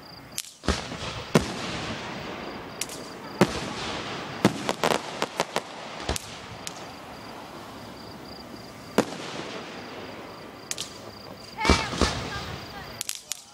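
Aerial fireworks launching and bursting: sharp bangs at uneven intervals, several in quick succession about four to five seconds in and again near the end.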